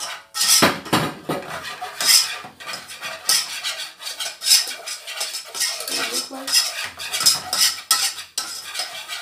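Metal spoon, then a wire whisk, scraping and clinking irregularly against a nonstick saucepan while flour is stirred into melted butter: the roux stage of a béchamel sauce.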